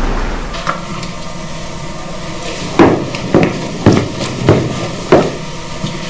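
Footsteps on a hard floor: a series of sharp knocks about half a second apart, over a faint steady hum.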